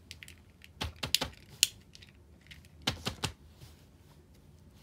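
Sharp plastic clicks and knocks of a fidget cube being handled and set down on paper, in two quick clusters about a second in and about three seconds in.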